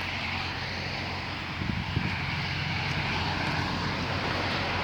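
An engine running steadily with a low drone, and a couple of brief knocks about two seconds in.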